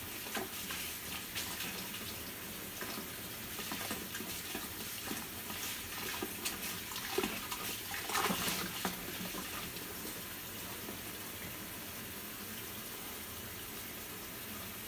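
Kitchen tap running steadily into a plastic basin of water in a stainless steel sink, with splashing and sloshing as hands swish and rinse stems of paragis (goosegrass). The splashing is busiest around the middle.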